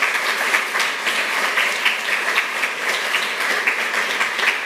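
Audience applauding steadily, a dense patter of many people clapping.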